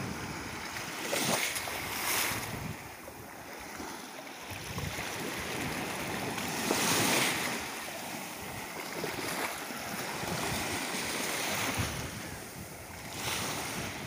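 Small sea waves breaking and washing up a sandy shore, the surf swelling and ebbing every few seconds, loudest about halfway through.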